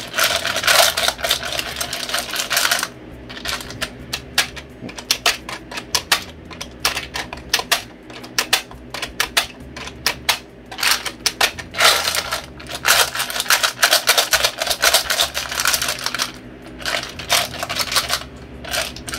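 Caldwell rotary mag charger being worked by hand on a 10/22 rotary magazine: rapid, uneven plastic clicking with loose .22 LR cartridges rattling in its hopper, coming in several denser bursts. The charger keeps skipping and side-feeding rounds, shooting shells out the side rather than loading them.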